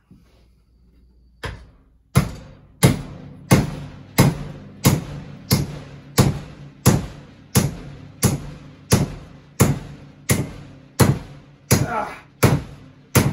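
Hammer blows driving a hardwood walnut wedge into the eye of an axe handle to hang the axe head: a steady run of sharp strikes with a short low ring, about one and a half a second, starting about a second and a half in.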